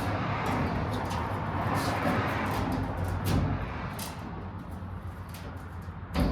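A metal pry tool working at the chrome trim on a 1978 Ford F100's bed side, making scattered clicks and scrapes over a steady low hum, with one loud knock near the end.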